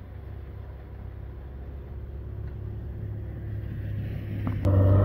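A 4x4's engine running, a steady low hum that grows louder as the vehicle approaches, with a sudden jump in loudness near the end.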